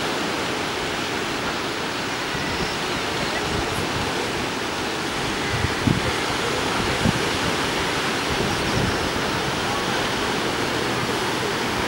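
Steady rushing of ocean surf washing over a rocky shore, with two short low thumps about six and seven seconds in.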